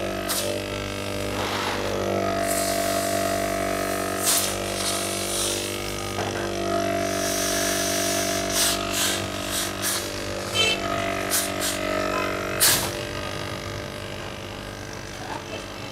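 Opened hermetic refrigerator compressor running on mains power through clip leads: a steady electrical hum with a pitched buzz that grows stronger and weaker, and a few sharp knocks from handling.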